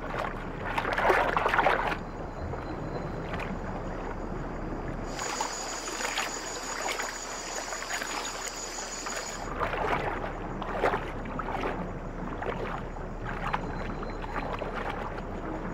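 Water splashing and sloshing from a swimming animal's paddling strokes, in irregular swells a second or two apart. For a few seconds in the middle, a steady high-pitched hum runs beneath it.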